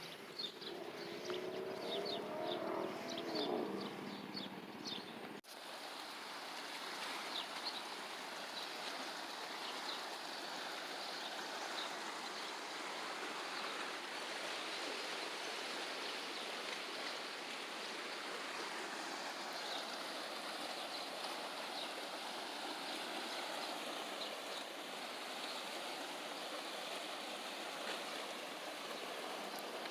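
Steady rush of flowing water, with birds chirping now and then. About five seconds in, the sound cuts abruptly; before the cut, birds chirp more busily and a lower warbling call is heard.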